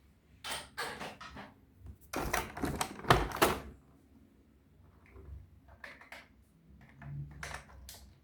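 Toys and their packaging being handled: an irregular run of clicks, taps and short rustles in small clusters, loudest about three seconds in.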